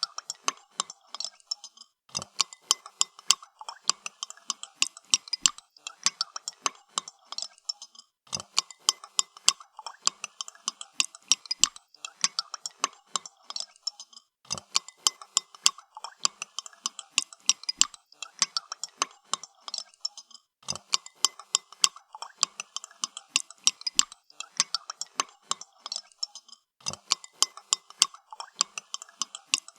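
A spoon stirring a cup of coffee, clinking rapidly against the sides of the cup several times a second. The stirring breaks off briefly about every six seconds.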